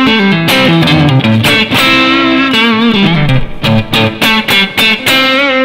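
Yamaha Pacifica electric guitar played through a Yamaha THR10 amp on its crunch preset, lightly overdriven: a lead line of single picked notes, several held with vibrato.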